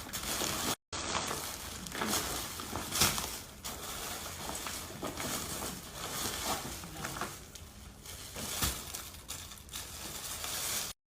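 Packaging being handled and unwrapped: irregular rustling and crinkling with scattered small knocks and clinks, cut by a brief dropout about a second in.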